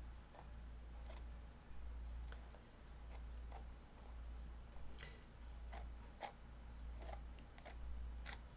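Faint, soft scrapes and squishes of a tool spreading thick texture gel through a stencil onto canvas, about ten short strokes at uneven intervals over a steady low hum.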